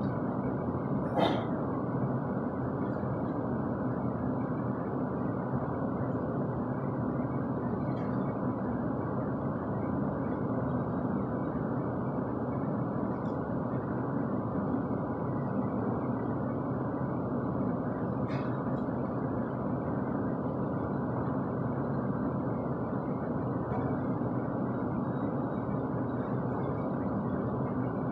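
A steady rushing noise with no rhythm, like a fan or other constant background hum, broken by a few faint short knocks.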